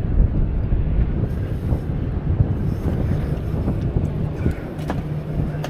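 Wind buffeting the microphone on a boat at sea, a steady low rumble, with a faint steady hum coming in about halfway through.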